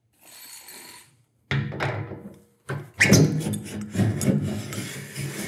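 Metal drum pump tube rubbing and scraping as it is pushed down through the oiled O-ring of the bung adapter into a steel oil drum. The sound starts suddenly about a second and a half in, with a couple of knocks, and the scraping then carries on.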